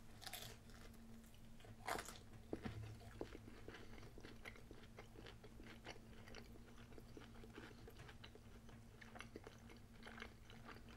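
Faint sounds of a person biting into and chewing a soft crepe: small scattered mouth clicks, a couple of them louder about two seconds in, over a low steady hum.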